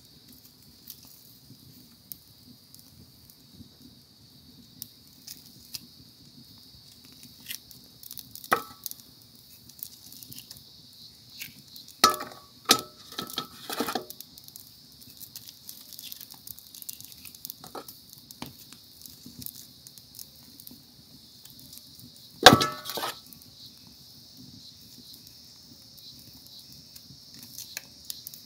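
A knife scraping singed trotters over a large aluminium basin, with scattered clinks and knocks against the metal; the loudest come about 12 to 14 seconds in and again about 22 seconds in. A steady high-pitched drone runs underneath.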